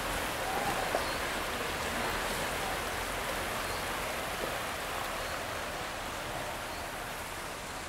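Steady rushing of a fast-flowing, muddy river running high after heavy rains.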